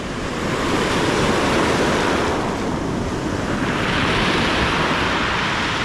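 Ocean surf breaking and washing up a pebble shore: a steady rushing that swells twice, the second surge about four seconds in higher and hissier.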